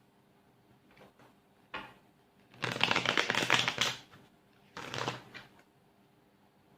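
Tarot cards being shuffled: a short rustle, then a rapid run of fine clicking flicks lasting over a second, and a shorter run of flicks about a second later.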